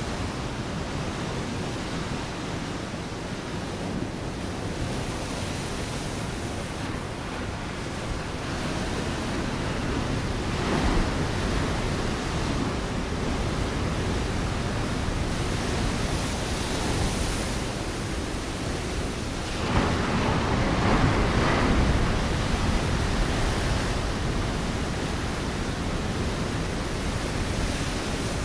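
Ocean waves breaking on a rocky shore: a continuous rushing wash of surf, with one wave crashing about 11 s in and a bigger one about 20 s in.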